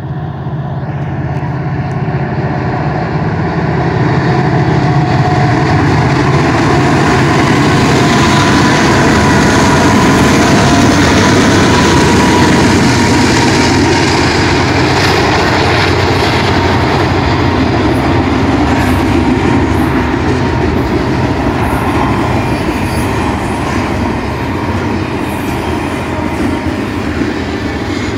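Union Pacific diesel locomotives pass close by at speed, their engine drone building over the first few seconds, followed by the steady rolling noise of double-stack intermodal freight cars' wheels on the rails.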